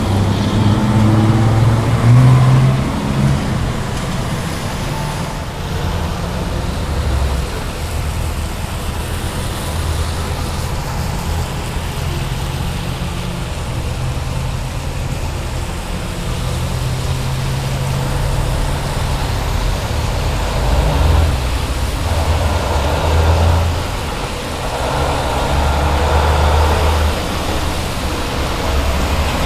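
Road traffic at a street intersection in the rain: car and truck engines running low as vehicles idle and pass, swelling and fading, over a steady hiss of rain and wet road.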